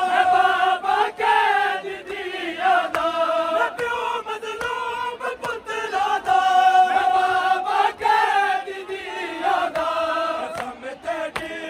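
A group of men chanting a Punjabi noha (mourning lament for Imam Ali) in unison, in long held lines. Sharp hand slaps on chests (matam) sound through it.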